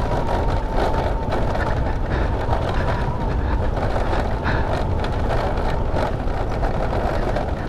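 Motorcycle riding along, its engine and tyre noise mixed with wind buffeting the helmet-mounted microphone. A faint steady whine fades out about three seconds in.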